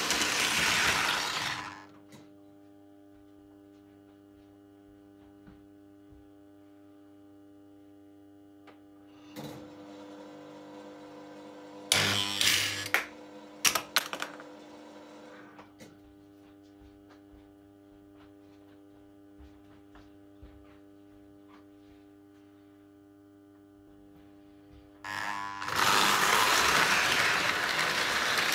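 Lionel O gauge toy steam locomotive running on three-rail metal track for the first two seconds and again over the last three. Between runs a steady electrical hum holds, with a few sharp clicks about halfway through.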